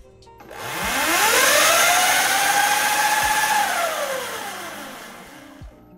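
Talaria electric dirt bike's motor and drivetrain revved hard, up to about 9,400 rpm: a whine rises to a steady high pitch, holds for about two seconds, then falls away as the motor spins down, over a loud rushing noise.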